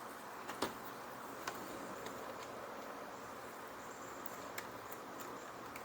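A few faint, sharp clicks of small parts being handled while the throttle cable is fitted to the blower's carburetor, over a low steady hiss.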